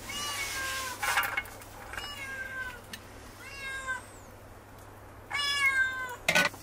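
A cat meowing, four drawn-out meows in a row. Two short metal clatters from a ladle against metal dishes, one about a second in and one near the end.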